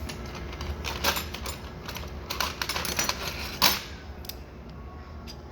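Metal parts of a ratcheting tap and die set clicking and clacking as they are handled, in an irregular run of small knocks with one louder clack about three and a half seconds in.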